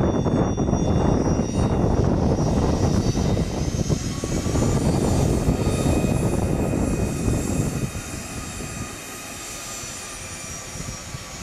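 Hawker 900XP business jet taxiing, its twin rear-mounted Honeywell TFE731 turbofans running at taxi power: a loud low rumble with a thin high turbine whine. The sound drops noticeably about eight seconds in as the jet moves off.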